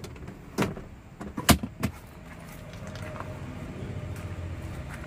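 Several sharp taps and knocks on a car's hard plastic dashboard in the first two seconds, then a steady low hum.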